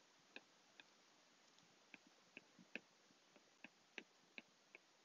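Stylus tip tapping on a tablet's glass screen while drawing and writing: about a dozen faint, sharp clicks at uneven intervals.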